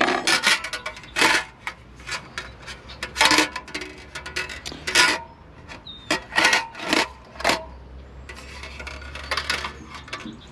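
Thin metal parts of a portable briefcase charcoal grill clattering and scraping as they are handled and the charcoal tray is fitted into place: a run of sharp metallic clanks with a stretch of scraping near the end.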